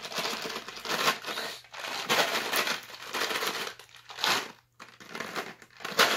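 Crinkly sweets packet being opened and rummaged through, in several bursts with short pauses between.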